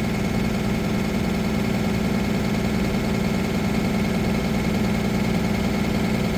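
Cummins B6.7 diesel bus engine idling steadily, held at an automatic fast idle because the driver's air conditioning is switched on.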